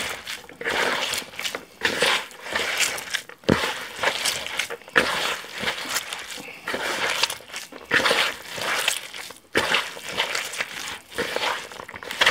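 A hand squeezing and kneading grated raw potato mixed with egg and dry breadcrumbs in a plastic bowl: wet squishing and crunching in irregular bursts, about one or two a second.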